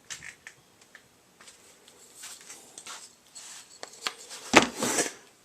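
Small wooden blocks and a large clamp being handled on a workbench: scattered light clicks and rubbing, then a loud knock about four and a half seconds in, followed by a short scraping rustle.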